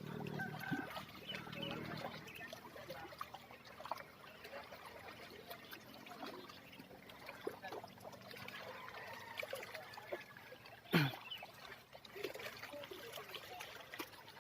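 Lake water lapping and trickling in small irregular splashes. About eleven seconds in, a single brief, loud sound falls in pitch.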